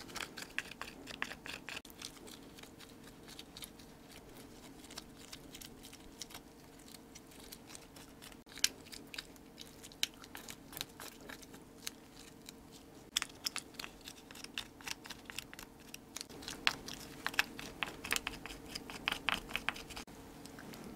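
Close-miked chewing and wet mouth sounds from eating soy-marinated raw stone crab with rice. Irregular crisp clicks and small crunches come in clusters, busiest in the second half, over a faint steady hum.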